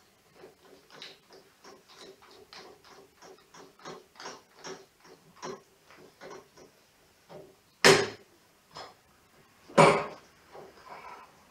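A tap being worked by hand in a bench drill press chuck to cut threads: a run of light metallic clicks, about three a second. Two loud metal knocks come near the end.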